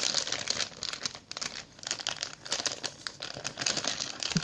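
Plastic packaging crinkling and crackling in quick, irregular rustles as a squishy toy in its wrapper is handled and squeezed.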